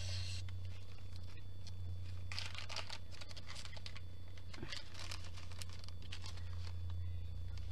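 Light plastic rustling and small clicks as bags of diamond-painting drills are handled, over a steady low hum.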